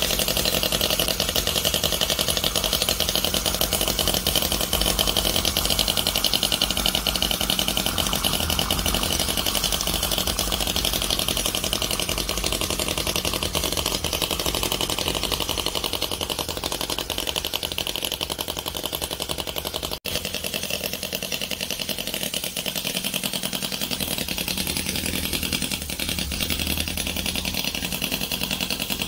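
OKMO R30 miniature Panhead-style V-twin four-stroke gasoline model engine running steadily, a fast, even popping rattle from its small cylinders and exhaust. A momentary break about twenty seconds in.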